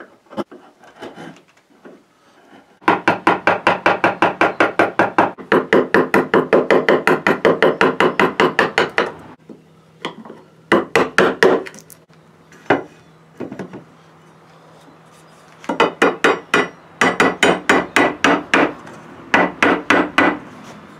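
Wooden mallet tapping a wood chisel rapidly, inletting the barrel channel into a walnut gunstock: runs of quick strikes, about six a second, each with a short ringing tone, broken by brief pauses.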